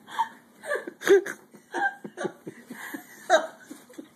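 Several people laughing in short, irregular bursts.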